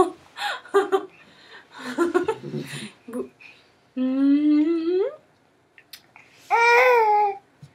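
Baby babbling in short syllables, then two long drawn-out vocal sounds: one about four seconds in that rises in pitch at its end, and one near the end that falls.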